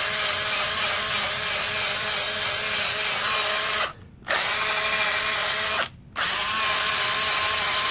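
Drill spinning a wire wheel brush against brick pavers to scrub stains off them: a steady whine with a scratchy hiss, stopping briefly twice, about four and six seconds in.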